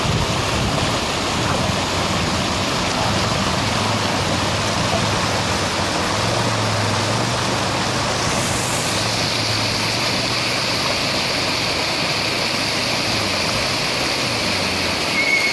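Steady rushing of a mountain stream, with a Suzuki KingQuad 750 ATV's single-cylinder engine running at low revs faintly underneath.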